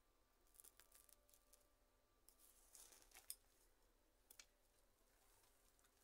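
Faint scattered scratching and rustling of hands working a potted Portuguese lace fern loose from its compacted soil, over near silence, with one sharper click about three seconds in.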